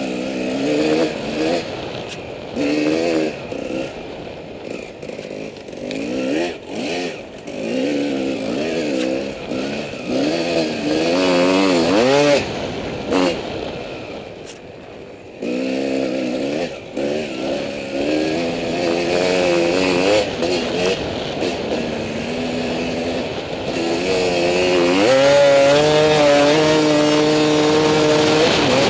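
Dirt bike engine heard from on board, its pitch rising and falling over and over as the throttle is opened and shut. Near the end it climbs and holds at a steady high rev. Short clattering knocks come through along the way.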